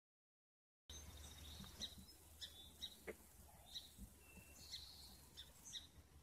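Silence for about the first second, then faint outdoor ambience: a string of short, high bird chirps at irregular intervals, one brief thin whistle in the middle, over a low steady rumble.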